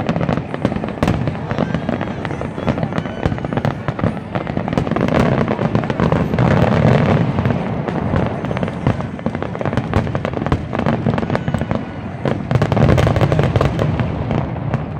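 Fireworks display: many aerial shells bursting in quick succession, a constant barrage of booms and crackling with no pause.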